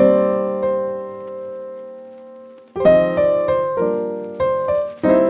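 Background piano music: a chord rings and fades for about two and a half seconds, then notes and chords are struck roughly every half second.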